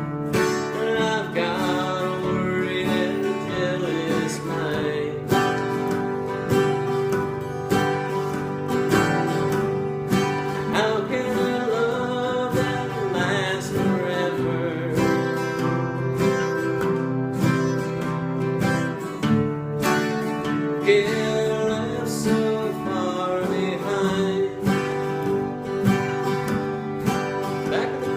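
Acoustic guitar music in a country style, playing steadily with no sung words.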